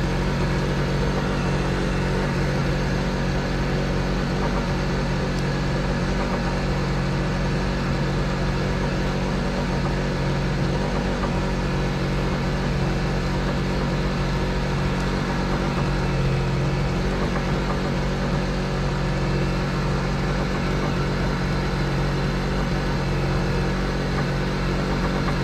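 A boat's engine running steadily at idle, a low, even drone that neither rises nor falls.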